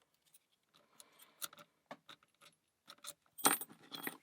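Scattered small metallic clicks and rattles from lock picks and a tension tool working a Standers 44 mm laminated padlock as the lock is reset. A louder jangling clatter comes about three and a half seconds in.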